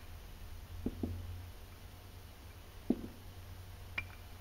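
A few soft knocks and a click as greasy clutch roller weights are pulled from a Yamaha Viking's primary clutch and set down on a shop towel: a close pair about a second in, one near three seconds and a sharper click near the end, over a low steady hum.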